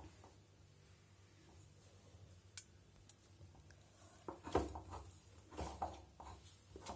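Hands kneading maida and ghee dough in a bowl: faint soft thumps and squishes as the dough is pressed into a ball, coming several times in the second half, with a single small click near the middle.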